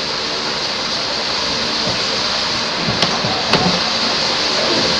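Steady rushing background noise, with two faint clicks about three seconds in, half a second apart.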